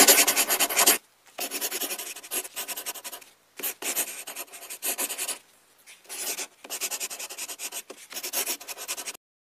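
Fast scribbling: a pen scratching quickly back and forth over a surface in four bursts of rapid strokes with short pauses between. It stops abruptly near the end.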